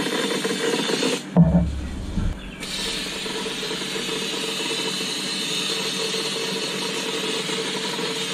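Powder-coating gun hissing steadily as its air blows red powder onto a model van body. The hiss stops for about a second near the start, where a couple of low knocks are the loudest sounds, then resumes steadily. A steady low hum runs underneath.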